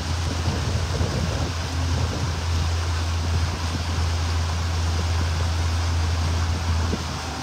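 Motorboat engine running at a steady cruise, a constant low drone under the rush of wind on the microphone and water along the hull.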